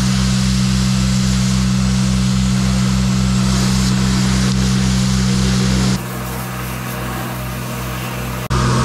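Engine-driven pump machinery running steadily with a low pulsing beat of about four a second, over the hiss of water spraying from a hose nozzle into a septic tank. The sound turns quieter and duller about six seconds in, then comes back full just before the end.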